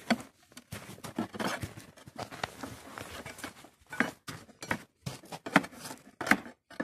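A steel crowbar prying and knocking at the cast-iron housing of a large electric motor: irregular scraping and crunching, with several sharper knocks in the second half.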